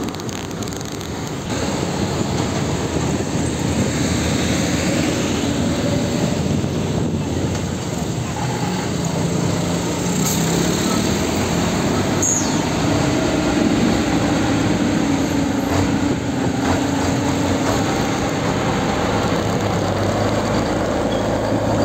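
Heavy diesel tractor-trailer trucks passing close by in traffic, their engines running with the pitch rising and falling as they move off, over steady road and tyre noise.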